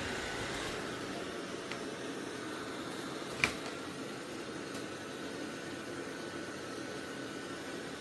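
Dreame robot vacuum running with a steady fan whir, with one sharp click about three and a half seconds in.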